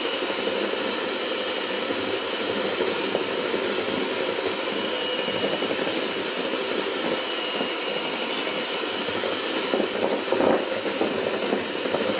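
Electric hand mixer running steadily, its beaters whipping cream cheese and butter in a glass bowl, with a brief louder patch near the end.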